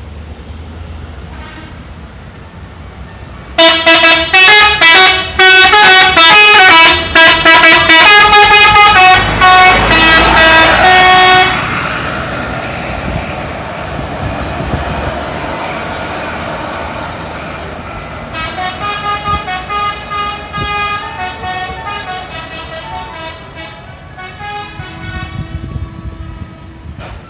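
Telolet horn of a PO Haryanto bus: a set of multi-tone air horns played as a quick, jumping melody, very loud for about eight seconds. After a pause filled with the bus's engine noise it plays again, quieter, for the last ten seconds or so.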